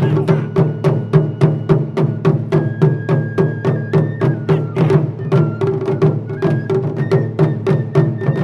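Ensemble taiko drumming: a quick, steady beat of stick strokes on the drums, the big drums ringing low beneath them. A shinobue, the Japanese transverse bamboo flute, plays a melody of held notes over the drums.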